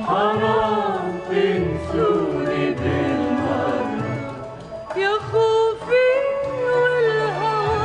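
Middle Eastern music: an ornamented, gliding melody line over a steady low accompaniment, playing continuously.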